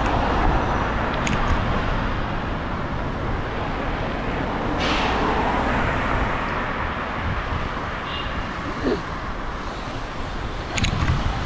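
Steady rush of road traffic noise, with a few faint clicks and a short rising tone about nine seconds in.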